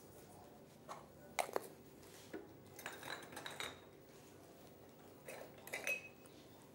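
Light clinks and knocks of kitchen things being handled: spice jars taken from a wire rack and a glass bowl on the worktop. They come in three short clusters, about a second and a half in, around three seconds in and near the end.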